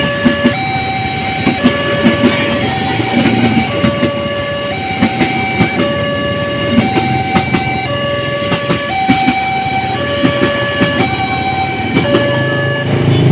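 Electronic level-crossing warning alternating between two tones about once a second, while a passing train's wheels clatter over the rail joints. Both stop near the end.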